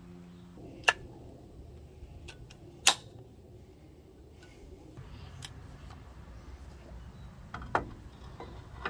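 Sharp metallic clicks and clinks of a disc brake caliper and its pads being handled and fitted over the rotor: two loud clicks about one and three seconds in, and a few fainter ones later.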